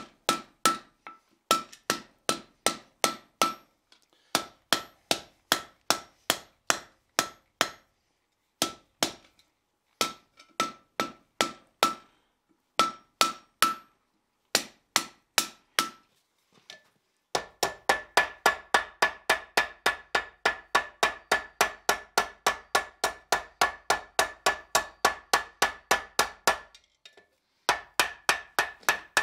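Hand hammer striking red-hot steel on an anvil in quick, even blows with short pauses, each blow ringing, as the end of a flat bar is balled up. From about 17 seconds in, the blows come faster and ring at a higher pitch as the ball is finished in the half-ball cavity of a swedge block.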